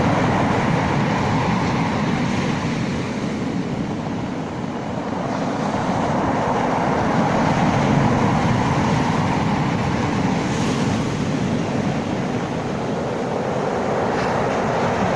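Sea waves: a steady rushing wash of surf that swells and eases slowly over several seconds.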